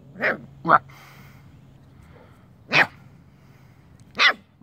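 Schnauzer puppies barking: four short, high yapping barks, two close together at the start, then one about two seconds later and another near the end.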